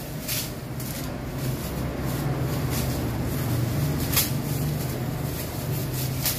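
Clear plastic packaging crinkling as a small wrapped part is unwrapped by hand, with a few sharp crackles, over a steady low hum.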